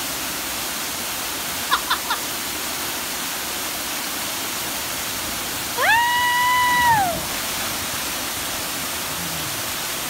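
Steady rush of a waterfall pouring into a rock pool. About six seconds in, a person gives one loud, high-pitched yell lasting about a second, rising then falling away, as a jumper leaps into the pool; three very short high chirps come about two seconds in.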